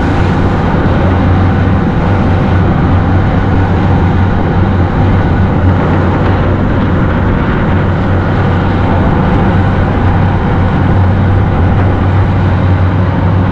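Tour boat's engines running steadily, a deep continuous drone with hiss over it.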